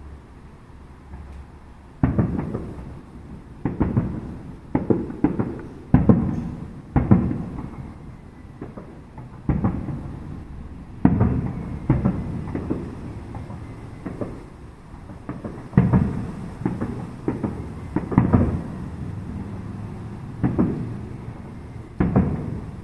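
Aerial firework shells bursting one after another, a deep boom about every second, each dying away in a rolling echo.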